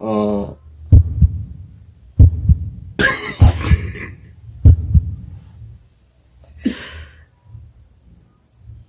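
A series of loud, dull, low thumps, about half a dozen over the first five seconds, with a short noisy burst around three seconds in.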